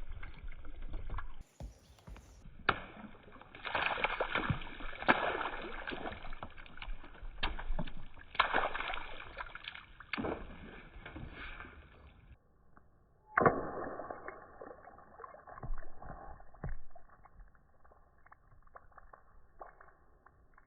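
Marbles rolling and clattering along a marble run track, a steady rolling noise broken by many small clicks and knocks as they hit the track and each other. The sound changes abruptly twice, near the start and about two-thirds of the way through.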